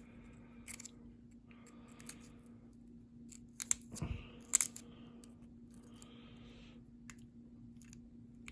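Metal lock pick scraping and clicking inside a Union six-lever padlock as its levers are picked, with scattered sharp clicks, the loudest a little before the middle.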